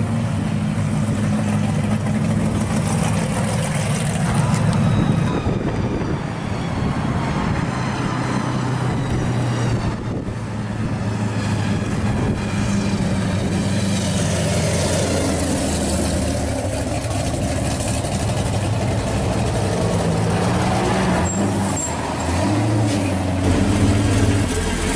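Loud exhausts of modified V8 muscle cars idling and rolling past one after another at low speed, a deep rumble that changes as each car goes by. Near the end an engine note rises and falls under light throttle.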